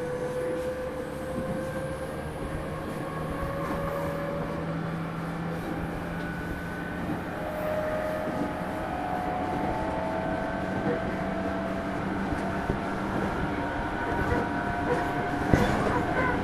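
JR East 205-0 series electric train running, heard inside a motor car: the steady rumble of the wheels on the rails under a faint motor and gear whine that climbs slowly in pitch as the train gains speed. A single sharp knock comes near the end.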